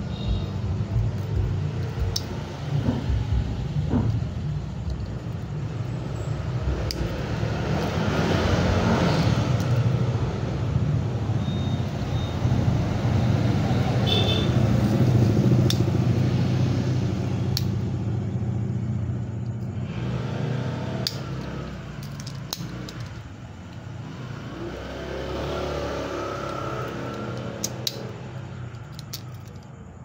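A steady low rumble that swells from about eight to sixteen seconds in and again a few seconds before the end, with a few sharp clicks here and there.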